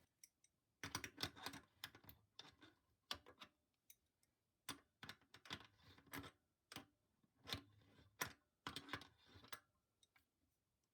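Irregular light clicks and knocks in short clusters: screws and small parts being handled and set down during the removal of an industrial sewing machine's motor.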